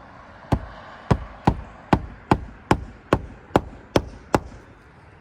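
Roofing hatchet hammering roofing nails through an asphalt shingle: a run of ten sharp blows, about two and a half a second, that stops a second before the end.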